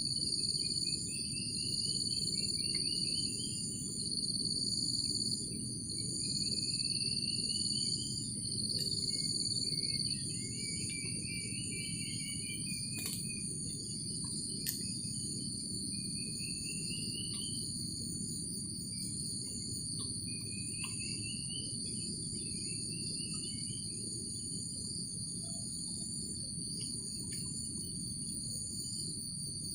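Forest insect chorus: several crickets or cicadas hold steady shrill tones, one of them pulsing, with short rising chirping trills every few seconds. Under it runs a steady low rushing noise, and two sharp clicks come about halfway through.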